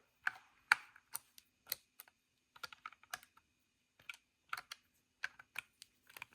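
Irregular light clicks and taps of a small screwdriver working the screws on the underside of a plastic Athearn RTR model locomotive as it is handled, two to four clicks a second.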